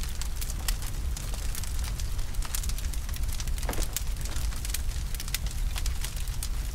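Bonfire of dry branches burning, with dense, irregular crackling and popping over a steady low rumble.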